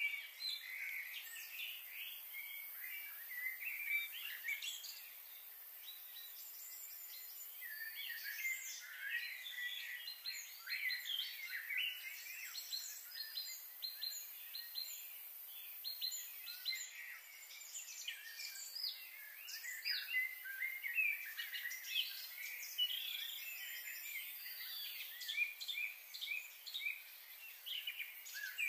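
Many birds chirping and calling over one another in a dense, continuous chorus of short, high notes.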